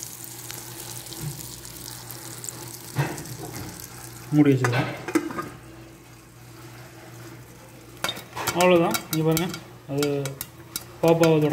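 Popcorn kernels sizzling in melted butter in a pot. About eight seconds in, the kernels start popping under the lid with a rapid run of sharp cracks.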